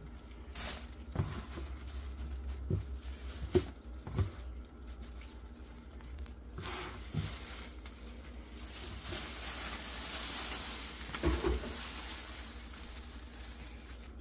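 Scattered light clicks and knocks with a soft rustle, from plastic food containers and their lids being handled.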